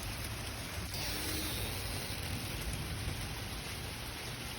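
Rain falling steadily during a thunderstorm, an even hiss.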